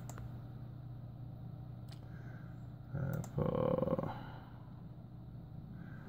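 Steady low hum with a few sharp isolated clicks, and a short, muffled, voice-like sound about three seconds in.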